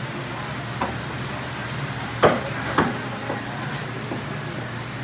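Sharp chops of a cleaver or knife striking a cutting board as fish are cut, a few irregular strikes, the loudest about two seconds in with another half a second later, over a steady low hum.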